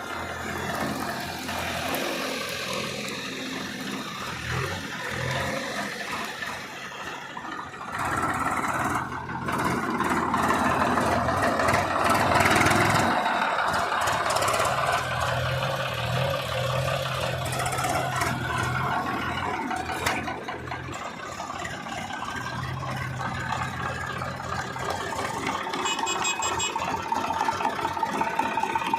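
Diesel engine of heavy earth-moving machinery running under work. It gets louder about eight seconds in.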